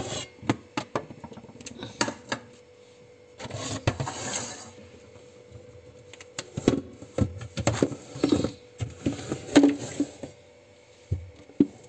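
Large stainless-steel pots and plastic containers being shifted and knocked together: scattered clicks and clanks, a longer scraping rustle about three and a half seconds in, and a run of louder knocks in the second half. A faint steady hum runs underneath.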